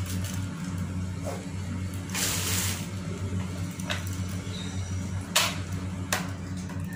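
A rice cooker's plug being handled into a multi-socket switch board and switched on: a short rustle, then a few sharp clicks, over a steady low hum.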